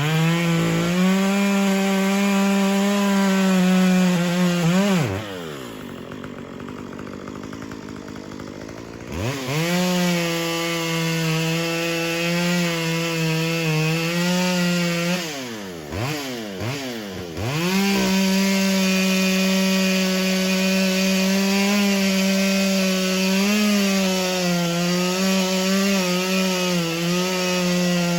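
Chainsaw running at high revs as it cuts into a tree for a hinge cut. About five seconds in it drops back to idle for about four seconds, then revs up again; past the middle it dips and revs up briefly before running steadily at high revs again.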